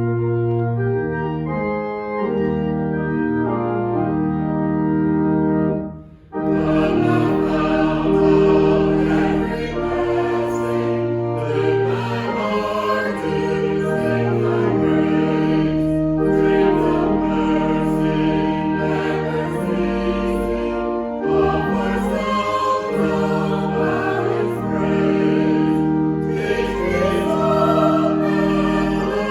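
Organ playing held chords. After a short break about six seconds in, a choir begins singing with organ accompaniment.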